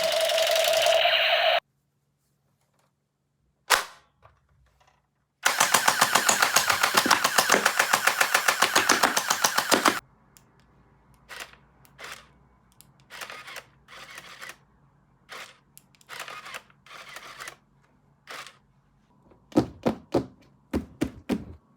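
Electric toy gun's rapid machine-gun sound effect, about seven pulses a second for some four seconds, after a brief electronic tone and a single click. Then a run of separate clicks and taps, a few of them in quick succession near the end.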